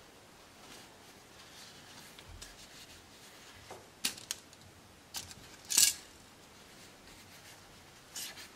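Layered cotton fabric being handled and pinned by hand: faint rustling, with a few short sharp clicks and scrapes between about four and six seconds in and again near the end.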